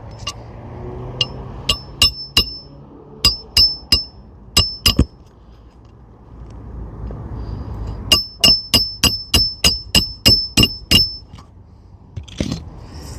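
Hammer driving roofing nails through a replacement asphalt shingle into the roof decking, each blow a sharp ringing strike. An unhurried series of about ten blows, then after a pause a quick run of about a dozen at about four a second, two nails driven in all, with a short scrape near the end.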